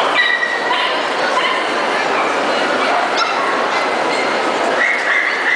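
Dogs whining and crying out with high, drawn-out calls, once shortly after the start and again near the end, over the steady chatter of a crowded show hall.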